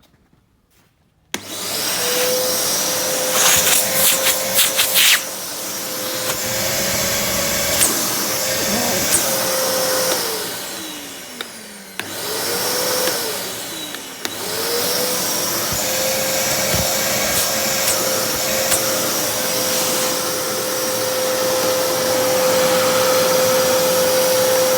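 Kärcher WD3 wet-and-dry vacuum cleaner switched on about a second in, its motor spinning up to a steady whine. There is a burst of rattling clicks a few seconds in. About ten seconds in it is switched off and winds down, then it is switched back on and runs steadily again.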